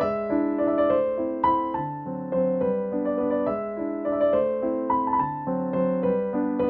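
Background music: a gentle piano piece, with struck notes and chords changing every second or so.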